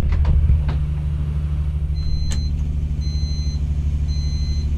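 Power boat's engine running at cruising speed, a steady low drone heard inside the pilothouse. There are a few clicks in the first second, and an electronic device beeps three times, about a second apart.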